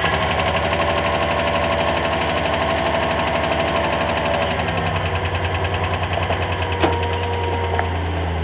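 1996 Dodge Dakota's 3.9-litre Magnum V6 idling with a steady, even pulse just after a cold start at eight below zero, having sat unstarted for a week or two. The note shifts slightly about halfway through, and a single click comes near the end.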